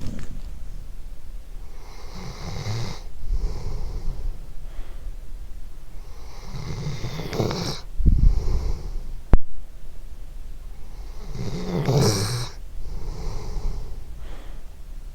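A sleeping dog snoring, with a snoring breath every two to three seconds. A single sharp click a little past the middle is the loudest moment.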